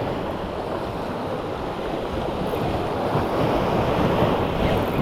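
Waves washing against the rocks of a jetty, with wind buffeting the microphone.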